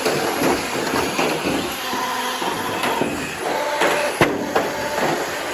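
Radio-controlled cars in a derby, their motors running with tones that shift as they speed up and slow down, over a constant clatter of knocks as they ram each other. The sharpest crash comes about four seconds in.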